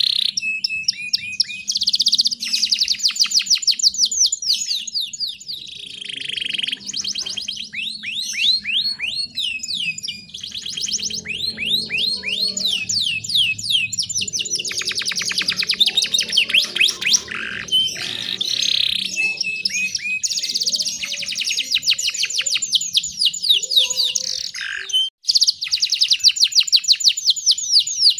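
Domestic canary singing continuously in long, rapid trills of evenly repeated high notes, mixed with whistled sweeps. The song pauses briefly near the end.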